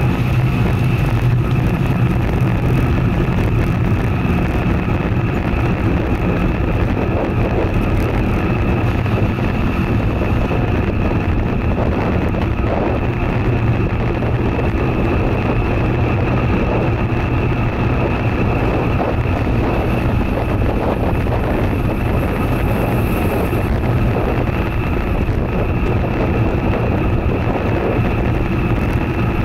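Wind rushing over an action camera's microphone on a moving road bike: a loud, steady rumble with no let-up.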